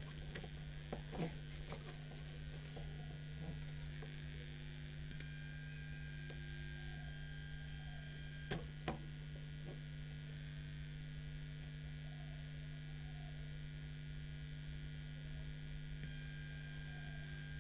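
Steady low mains hum from a powered LA4440 amplifier board with no signal playing, with a few faint clicks.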